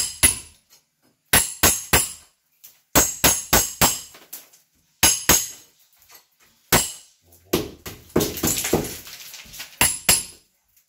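Hammer striking a steel chisel to chip crumbling concrete and plaster from around a window frame in a masonry wall: sharp metallic clinks in irregular groups of two to four blows, with a longer scraping noise a little before the end.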